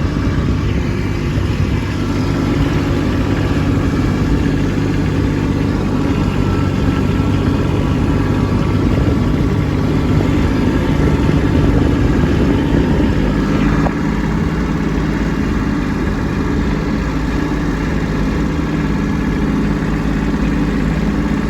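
Kubota B2601 compact tractor's three-cylinder diesel engine running steadily while clearing deep snow; the engine note shifts slightly about 14 seconds in.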